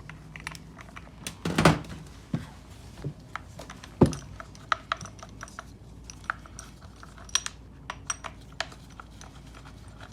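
Light clicking and clattering of chainsaw parts and hand tools being handled as the side cover, bar and chain are taken off, with two louder knocks about one and a half and four seconds in.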